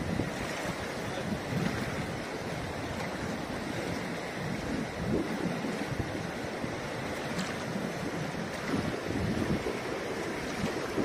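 Shallow mountain river rushing over stones: a steady wash of running water, with some wind buffeting the microphone.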